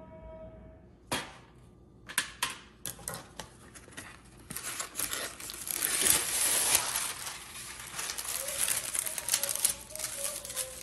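Parchment paper being pulled off its roll and handled over a metal baking sheet: a few sharp clicks and taps first, then loud crinkling around the middle that eases off toward the end.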